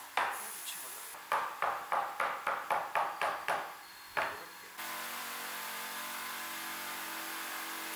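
Rubber mallet knocking the pins and tails of a wooden dovetail joint together: one blow, then a quick run of about ten blows in two seconds and a last blow a little later. From about five seconds in, a steady hiss and hum takes over.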